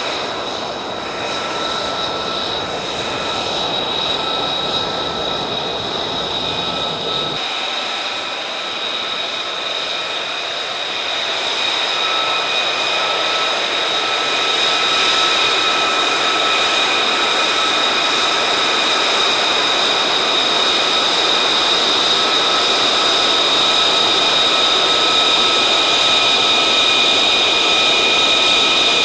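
F-35A's single Pratt & Whitney F135 turbofan running at low taxi power: a steady high-pitched whine of several held tones over a rushing noise. The deep rumble drops out abruptly about seven seconds in, and the whine grows louder from about twelve seconds on.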